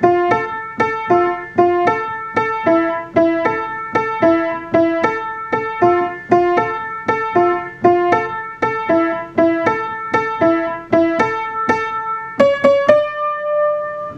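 Instrumental music: a piano-like instrument playing a bouncy repeating tune of struck notes, about three a second, over a few repeated chords. Near the end the tune ends on a held chord.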